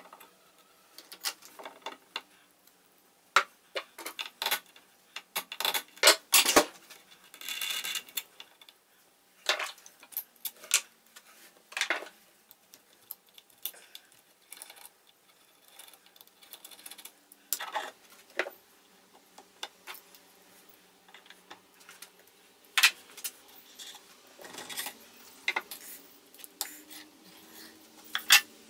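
Steel tools and machine parts clinking, clicking and knocking as a lathe saddle and cross slide are stripped by hand with a screwdriver and hex keys. The knocks come irregularly, some sharp, and one part rings briefly about eight seconds in.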